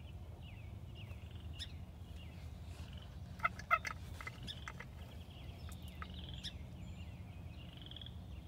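Wild turkey gobbling once, a brief rapid burst about three and a half seconds in, over many small high bird chirps and a steady low rumble.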